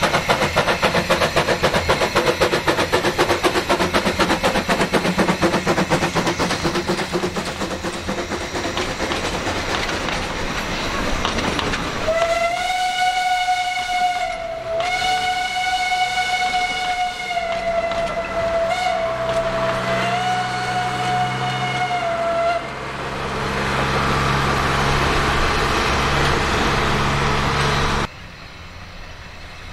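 Narrow-gauge steam tank engine passing close by, its exhaust chuffing in a fast, even beat. About twelve seconds in, a train whistle sounds in one long blast with a few brief dips, lasting about ten seconds. A diesel locomotive's engine follows with a steady low hum as it passes.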